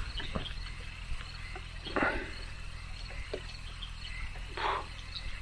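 Night ambience with faint high insect chirping, likely crickets, and two brief rustles, one about two seconds in and one near the end.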